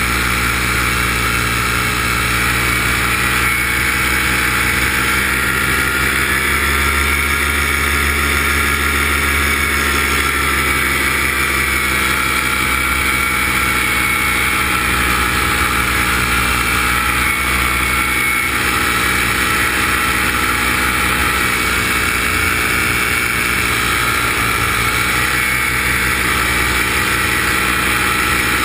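The filming aircraft's motor and propeller running steadily, its pitch drifting slowly up and down.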